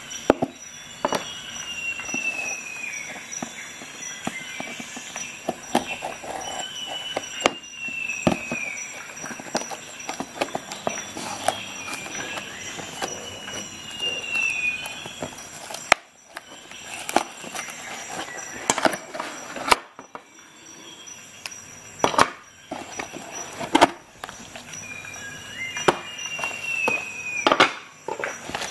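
A folding pocket knife blade cutting through a cardboard box in several drawn-out, squeaky scrapes that fall in pitch, mixed with sharp clicks and knocks from handling the box and knife.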